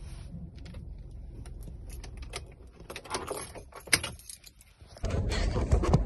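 Light clicks and rattles from hands working a car's steering wheel and controls, with one sharp click about four seconds in. About five seconds in, a steady low rumble starts.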